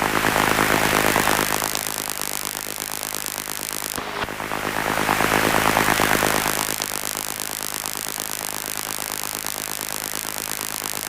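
Light aircraft engine idling on the ground, heard as a steady hum under constant hiss through the intercom. Twice, a click is followed by a swell of hissing that lasts about two seconds: once at the start and again about four seconds in.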